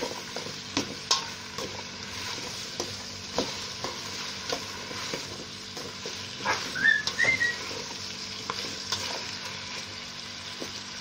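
Chopped onion, pumpkin, sweet pepper and cucumber sizzling in a stainless steel pot while a spoon stirs them, knocking and scraping against the pot. Two short high rising chirps come a little past halfway.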